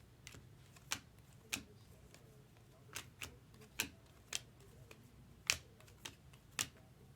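Sharp, irregular clicks, about ten over the few seconds, from Bowman Chrome trading cards being handled and flipped through one by one.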